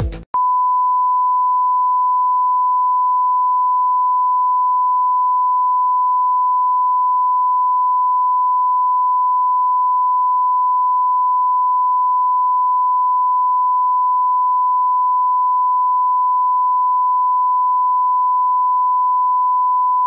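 Steady 1 kHz sine test tone, the broadcast reference tone that accompanies colour bars, starting just after a brief tail of music cuts off.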